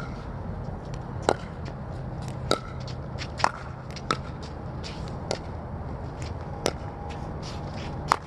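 Pickleball rally: sharp pops of paddles striking the plastic ball, about a second apart and irregular, with fainter bounces and taps in between, over a steady low background rumble.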